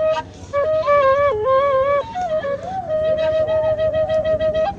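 Sundanese suling, an end-blown bamboo flute, played solo: a slow melody of bending, ornamented notes, with a short breath pause just after the start, then one long held note through the second half.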